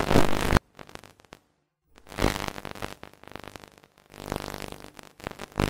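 Harsh, distorted electronic bursts with a buzzing undertone, each cutting off abruptly, separated by short silences: the loudest at the very start, then two longer ones and a short one near the end.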